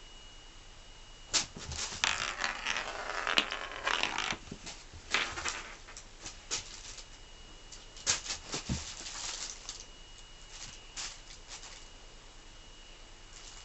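Cat scratching and scrabbling at a carpet: two spells of rustling, scraping strokes, then a few scattered scrapes.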